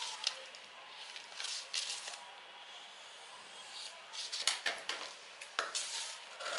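Pencil scratching and paper rustling on a paper sewing pattern, then a run of short, sharp snips as scissors cut through the paper in the second half.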